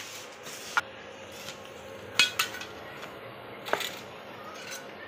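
Several sharp metallic clinks and taps of metal parts being knocked or handled, the loudest a pair a little after two seconds in, over a faint steady hum.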